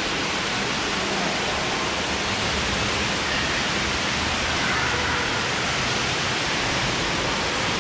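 Steady, even rushing noise of a large indoor pool hall.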